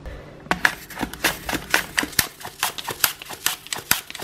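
An apple being sliced on a hand-held plastic mandoline: quick strokes across the blade, several a second, starting about half a second in.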